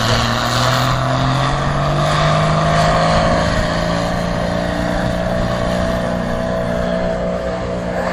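Pulling tractor's diesel engine running at high revs under heavy load while dragging the brake sled; the pitch climbs over the first three seconds, then holds steady.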